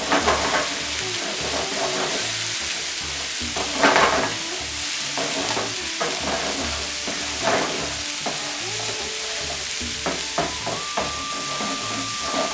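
An onion-tomato masala with freshly added spice powders sizzles in a pan while a spatula stirs it, scraping the pan in irregular strokes.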